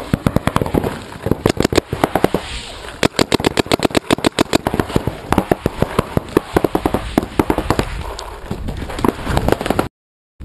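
Paintball markers firing fast strings of sharp shots, several a second, for the whole stretch. The sound cuts off abruptly near the end.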